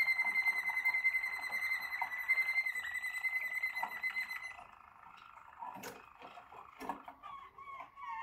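Waterslager (Malinois) song canary singing one long, steady whistled note, held until about four and a half seconds in and then cut off. A few soft clicks follow, and near the end a lower run of short warbling notes starts.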